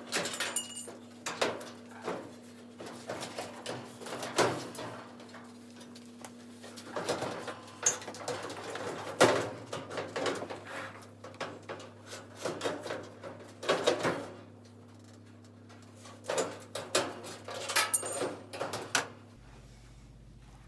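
Irregular knocks, clicks and scrapes of hand work on the sheet-metal cabinet of a gas clothes dryer as screws are taken out and panels are handled, over a steady low hum that stops near the end.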